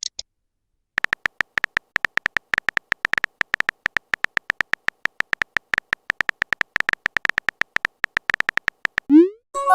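Rapid, irregular clicks of a phone keyboard's typing sound, each a short tick at the same pitch, running for about eight seconds from about a second in. Near the end comes a short rising swoop, like a message-sent sound.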